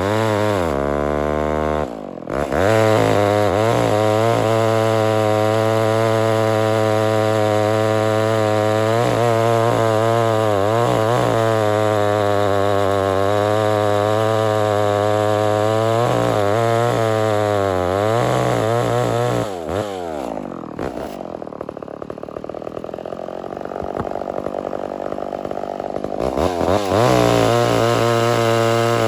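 Homelite Super XL-923 82cc two-stroke chainsaw running at high speed, its pitch sagging and recovering again and again, typical of the saw working under load in a cut. From about 20 seconds in it drops to a lower, rougher running for several seconds, then revs back up near the end.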